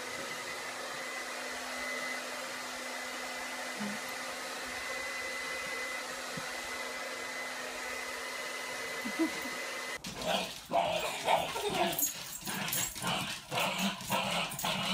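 A hand-held hair dryer blows steadily with a high whine, and a dog gives a couple of short whines at it. About ten seconds in this changes to a dog's rapid, uneven yips and growls during rough play.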